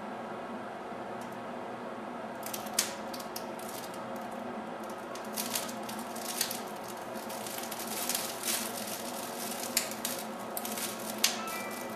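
Iron filings sprinkled into a gas burner's flame, burning with a fast crackle of sparks from about two and a half seconds in, with a few sharper pops, over the steady hiss of the burner.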